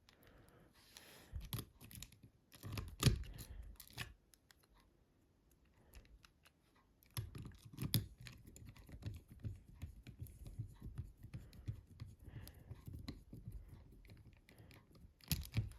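Small clicks and taps of a plastic mobile phone housing being handled, then, from about seven seconds in, a dense run of fine ticks and scrapes as a small screwdriver drives a screw into the Siemens C62's housing.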